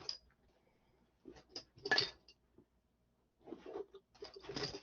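Small metal hand tools clinking and knocking as they are handled and set down, with one louder clink about two seconds in and a run of small clicks near the end.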